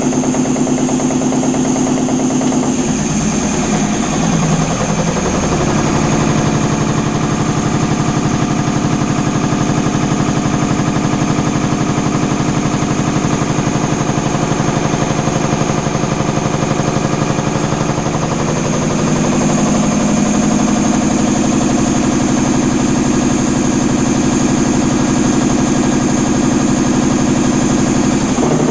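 Belliss WH50H3N multi-stage reciprocating air compressor running steadily, with a fast, regular mechanical beat; its tone shifts a few seconds in and again about two-thirds of the way through. The running noise is that of a compressor with play in the third-stage crosshead pin and too little lubrication in the guide, crosshead, pin and connecting-rod assembly, which led to the crosshead breaking.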